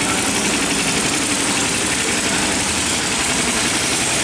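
Small wooden river boat's engine running steadily at low speed, a fast, even pulse with no change in pace.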